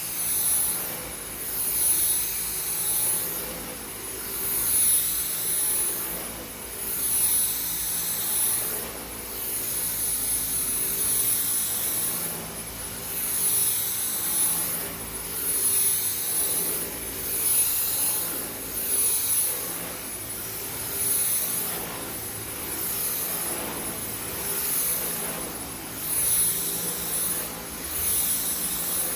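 Dyson V10 cordless stick vacuum running over carpet, with a steady high-pitched motor whine. Its sound swells and dips about every two seconds as the cleaner head is pushed back and forth.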